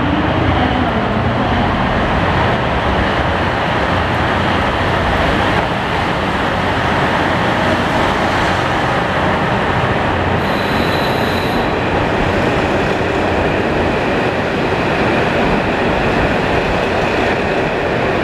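JR Hokkaido KiHa 183 series diesel multiple unit pulling slowly into a station platform, its diesel engines running and the cars rolling steadily past. A brief high-pitched squeal comes about ten seconds in.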